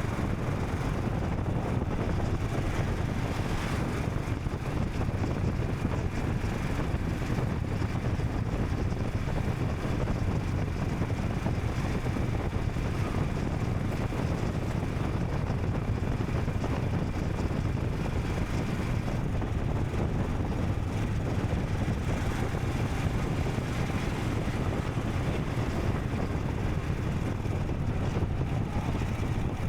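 Royal Enfield Scram 440's single-cylinder engine running steadily under way, with wind rushing over the microphone.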